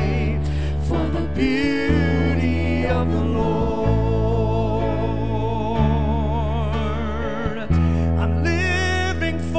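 Live contemporary worship band playing a slow song: keyboards over a steady bass, with singers holding long wavering notes between lines of lyrics.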